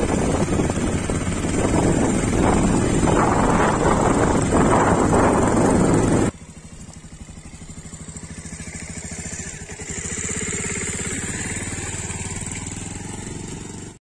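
Wind buffeting the microphone while riding, over a running engine; it cuts off abruptly about six seconds in. A motorcycle engine follows, running steadily at close range and rising a little about four seconds later.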